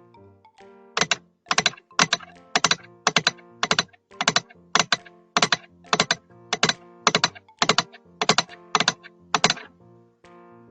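Sharp clicking taps in an even rhythm, about two a second, beginning about a second in.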